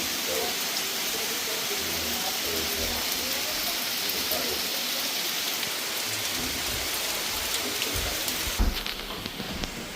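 Steady rain falling, an even hiss of drops. About eight and a half seconds in there is a sharp knock, and the rain hiss then drops off.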